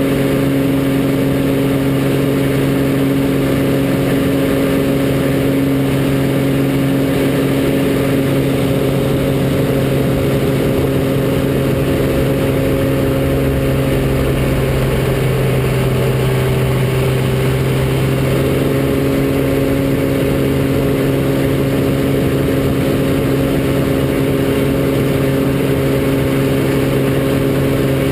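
Extra 300's six-cylinder Lycoming engine and propeller running hard, heard from inside the cockpit during aerobatics. The steady engine note wavers for a few seconds about halfway through as the manoeuvre changes the load, then settles back.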